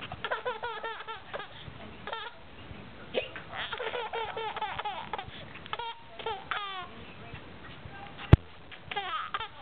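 High-pitched laughter in several bouts of rapid ha-ha pulses, broken by hiccups. A single sharp click about eight seconds in is the loudest sound.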